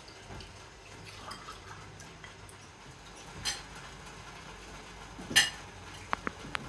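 Cutlery and dishes clinking as people eat at a table: scattered light clicks, a louder clatter about five seconds in, and a few short ringing clinks near the end.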